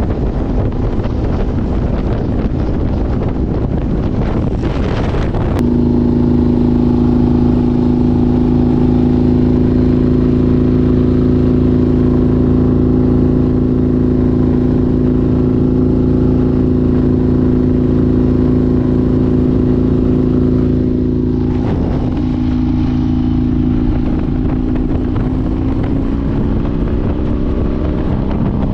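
Motorcycle underway at a steady speed: a rush of wind for the first five or six seconds, then the steady drone of the engine at cruising speed. The drone wavers a little after twenty seconds and rises slightly near the end.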